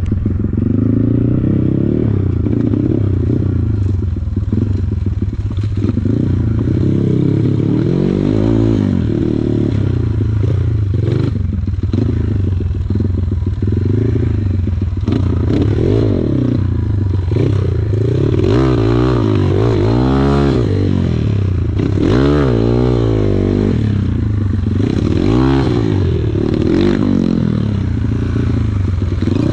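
Kawasaki KLX140 trail bike's single-cylinder four-stroke engine running under load on a rough trail, the revs rising and falling repeatedly as the throttle is worked, with the sharpest swings about twenty seconds in.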